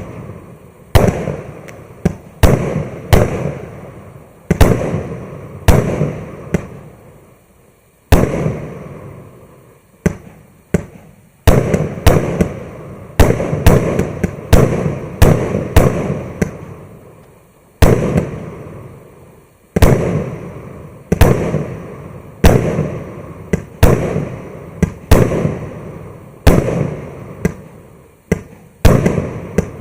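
A 49-shot "Romantic story" firework battery (cake) firing shot after shot. Each shot is a sharp bang followed by a fading rumble, coming roughly one to two a second with a few brief pauses.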